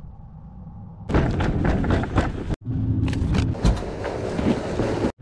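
A faint low hum, then about a second in a sudden run of knocks and clattering over a low rumble, broken by an abrupt cut and then resuming.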